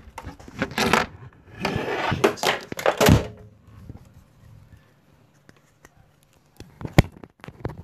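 Handling noise on the recording phone's own microphone: rubbing and knocks in the first three seconds as the phone is gripped and moved, then quieter, with one sharp knock about seven seconds in.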